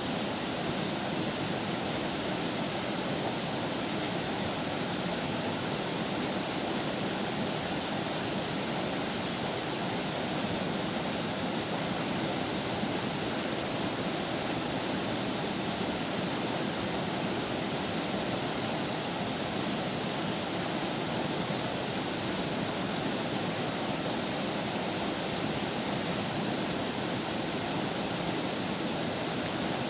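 River water flowing steadily over rocks, a constant rushing with no breaks.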